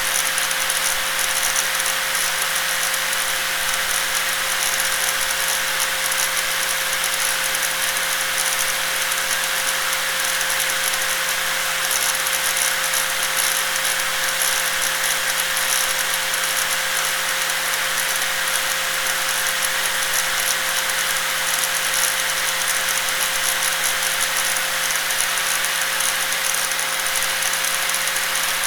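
Electric angle grinder running steadily, its motor and gears making a constant high whine with a rattling buzz.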